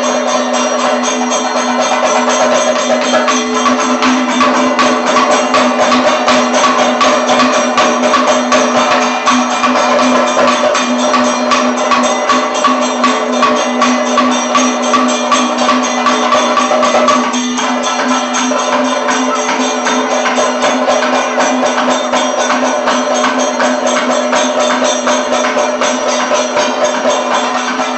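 Kathakali percussion ensemble playing a fast, dense rhythm on drums and hand cymbals over a steady sustained tone, accompanying the thiranottam curtain-look entrance; the playing briefly thins about two-thirds of the way through.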